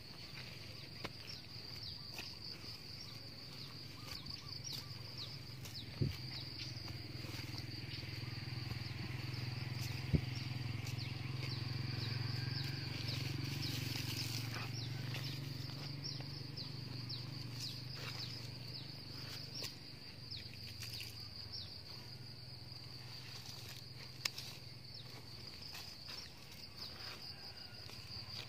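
Insects trilling steadily, a continuous high-pitched chorus. A low hum swells up in the middle and fades again, and there are a few sharp knocks.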